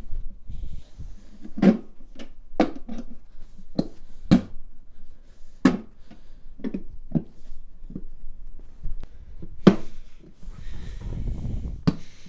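Sheet-metal stovepipe seam being pressed shut by hand, the folded edge snapping into its locking lip: a dozen or so sharp metallic cracks at uneven intervals, over low handling noise.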